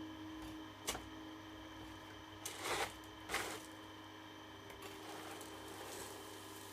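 Model excavator arm working: small motors whine in steady tones, with a sharp click about a second in and two short scraping rustles near the middle as the arm moves.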